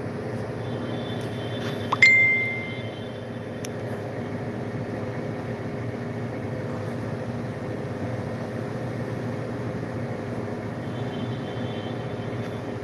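Steady low background hum, with a single sharp clink about two seconds in that rings briefly and fades.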